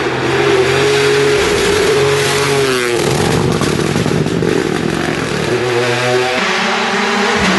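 Rally car engine driven hard through a corner, its note holding, dropping and rising again through gear changes. A little after six seconds in, it gives way abruptly to another rally car's engine at a different, steady pitch.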